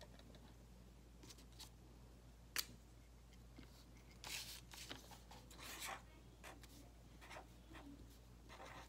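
Faint handling of a pen over paper: a sharp click about two and a half seconds in, soft rustling as the pen is picked up, then short scratchy strokes of a pen writing on paper near the end.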